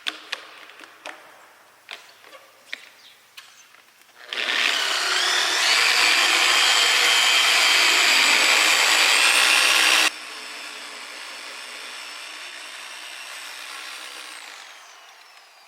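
Handheld electric paint polisher spinning up with a rising whine about four seconds in and running steadily. It drops suddenly to a quieter run near ten seconds and winds down near the end. A few light clicks and taps come before it starts.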